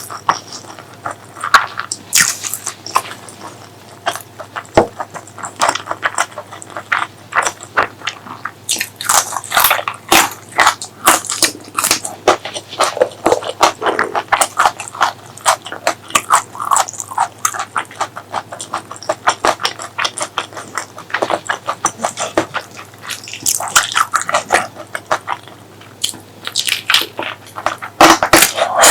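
Close-miked eating sounds of pork leg curry with rice: chewing with a dense run of short mouth smacks and clicks.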